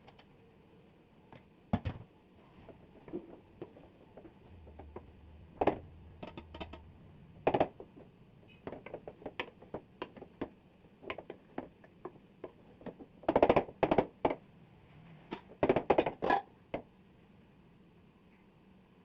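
Irregular knocks and clicks of kitchen utensils and cookware being handled, with louder bursts of clatter a little past the middle and again a few seconds later.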